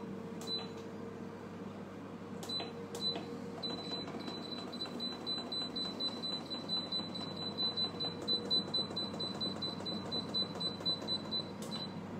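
FryAir Touch digital air fryer's control panel beeping: a quick run of short, high beeps on one pitch, about three a second, with a few single beeps and clicks before it, over the appliance's faint steady hum.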